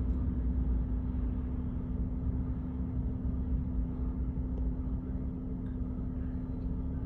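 Low, steady rumble of a jet airliner on its takeoff roll, over a steady hum.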